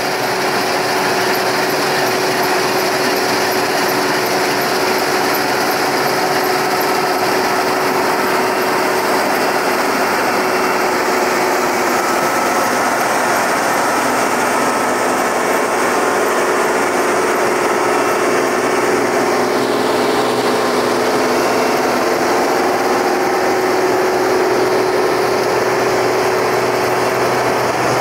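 Engine of harvest farm machinery running steadily, a constant hum with a steady tone over a dense mechanical noise.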